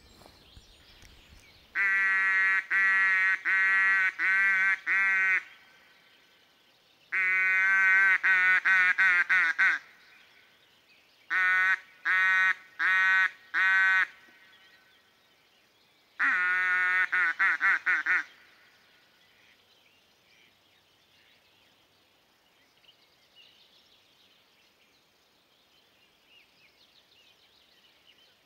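Loud duck quacking in four runs of about five to nine quacks each, with pauses of a second or two between runs, the second run quickening toward its end. After that only faint background sound.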